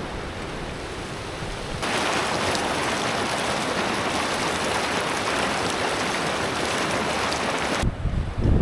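Steady rushing of a mountain stream or waterfall, growing suddenly louder about two seconds in and cutting off sharply near the end. Then wind gusts buffet the microphone with a low, uneven rumble.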